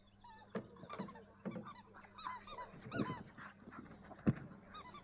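Rottweiler puppy yelping and whining in a rapid run of short, high cries. A single sharp snap about four seconds in is the loudest sound.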